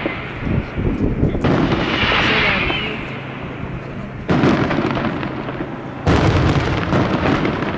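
Aerial fireworks going off: sudden bangs about a second and a half, four seconds and six seconds in, each followed by a long crackling, hissing tail.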